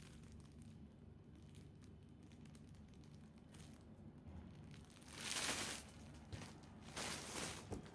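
Packaging being handled: after a few quiet seconds, two short bursts of plastic crinkling and rustling in the second half.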